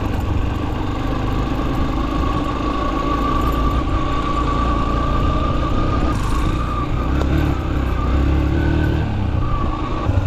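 Yamaha XTZ 125's single-cylinder four-stroke engine running steadily as the motorcycle rides along a dirt track, its note shifting in the last few seconds.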